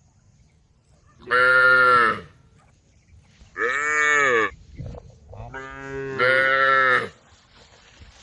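Cows mooing: three loud, drawn-out calls, each about a second long, the last one the longest.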